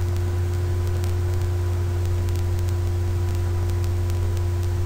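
Steady electrical hum with a strong low drone and a fainter higher tone over even hiss: mains hum and static on the recording, with no other sound.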